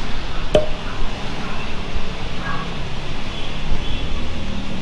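Steady low rumble of street traffic, with one sharp click about half a second in.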